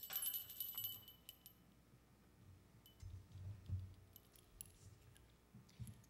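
Small bells ringing, their high, clear ring fading away over the first second and a half, with a click at the start; afterwards only faint low thumps and light clicks.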